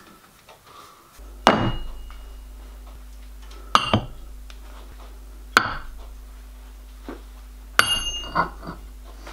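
Machined metal locomotive driving-wheel blanks being set down on a bench and stacked on one another: four metallic clanks about two seconds apart, each with a short ring. A steady low hum runs underneath.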